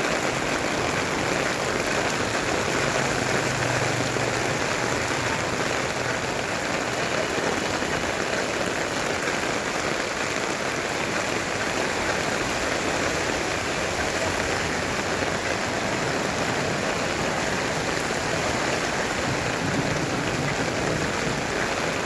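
Heavy rain pouring down in a steady downpour, with a faint low hum for a few seconds near the start.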